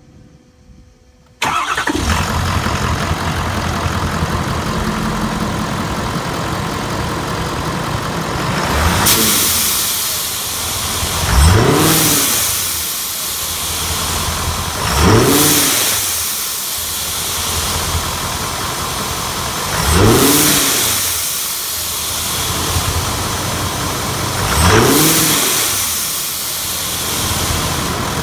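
A Ford 6.7 L Power Stroke V8 turbodiesel starts up about a second and a half in and runs steadily. From about nine seconds on it is revved up and back down four or five times, every four to five seconds.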